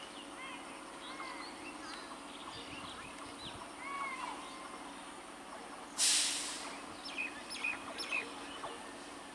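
Small birds chirping and calling in short rising and falling notes. About six seconds in there is a brief loud hiss, followed by a quick run of repeated sharp chirps.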